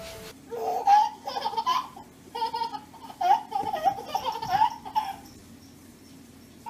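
A baby laughing in short, high-pitched repeated bursts for about five seconds.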